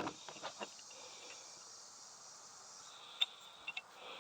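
Light clicks and taps of small hand tools being picked up and handled, the sharpest at the start and a few just after three seconds in, over a faint high-pitched trill in the background.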